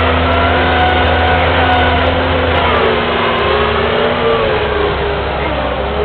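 Kubota skid steer's diesel engine running at working speed, heard from the operator's seat. Its wavering whine dips in pitch about halfway through as the loader pushes a bucketful of dirt.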